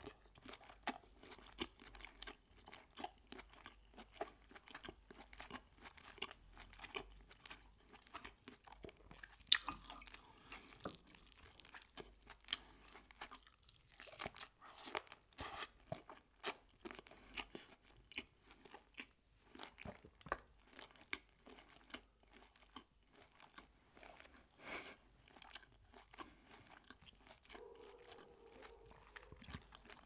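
Close-miked chewing of lobster meat: a steady run of small wet mouth clicks and smacks, with a few louder bites now and then.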